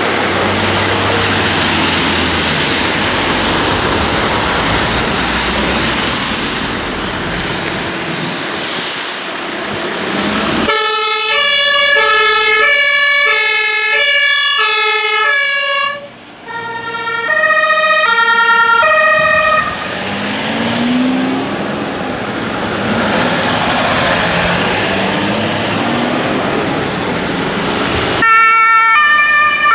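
Road noise of vehicles driving past on a wet street. About ten seconds in, a German two-tone emergency siren (Martinshorn) starts on Mercedes Sprinter ambulances moving off under blue lights, switching back and forth between its two pitches. After a short break the siren returns, and again near the end.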